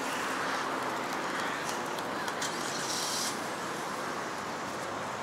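Steady outdoor city ambience: an even background hum of distant traffic, with a brief hiss about three seconds in.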